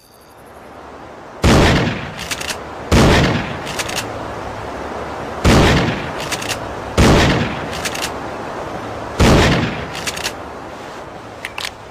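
Remington 870 Express pump-action shotgun fired five times, the shots spaced about one and a half to two and a half seconds apart. Each shot is followed by lighter clacks of the pump being worked to chamber the next shell, and a quick run of small clicks comes near the end.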